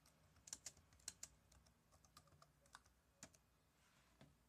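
Faint typing on a computer keyboard: about nine separate keystrokes at an uneven pace as a search term is entered.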